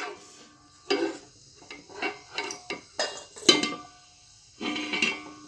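A ladle scraping and clinking against a metal pot while whole spices are stirred in hot oil, in a series of short strokes with brief gaps between.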